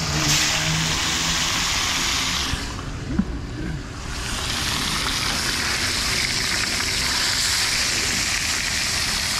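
Porgy pieces frying in hot oil in a skillet, a dense steady sizzle. It flares as a fresh piece is laid in near the start, falls off for about a second and a half around three seconds in, then comes back steady as the full pan bubbles.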